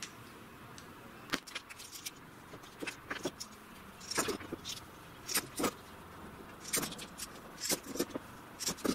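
Small metal clamps being handled, giving irregular light clicks and clacks as the turned wooden pads are pressed onto their jaws.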